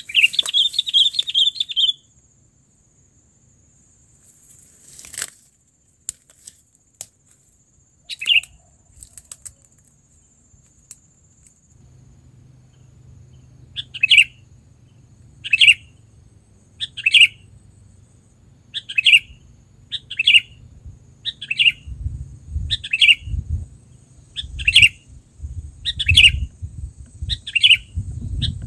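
Sooty-headed bulbul (kutilang) calling: one longer call at the start, then from about halfway through short chirping calls repeated roughly every second and a half. A low rumble sits underneath in the second half.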